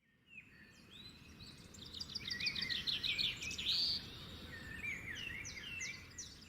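Birds chirping and singing over a faint outdoor hiss, fading in at the start, with a quick run of repeated notes in the middle.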